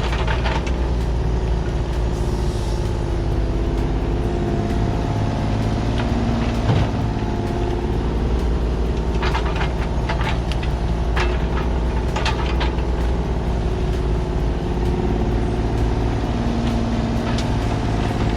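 Kubota mini excavator's diesel engine running steadily under working load while grading, its pitch shifting slightly as the hydraulics work. Scattered clanks and scrapes come from the bucket and tracks, with one sharp knock about seven seconds in.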